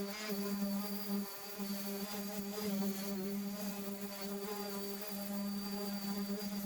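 Electric sander buzzing steadily while sanding Bondo filler, a steady low hum with overtones that drops out briefly about a second in.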